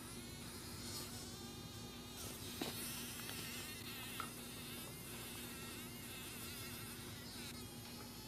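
A fly caught in a spider's web buzzing its wings in fits as it struggles, the buzz wavering in pitch.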